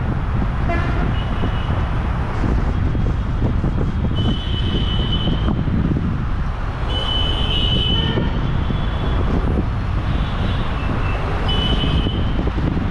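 City road traffic heard from a moving bicycle, with wind rumbling on the microphone. Vehicle horns toot several times, the longest about four seconds in, then again near the middle and near the end.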